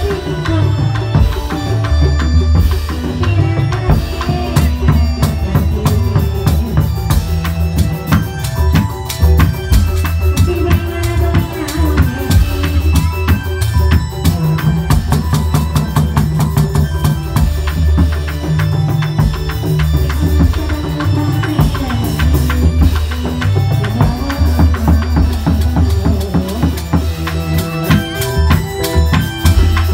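Live Indramayu reog ensemble music: fast, dense drumming over a heavy, steady bass beat, with a pitched melody line running above it.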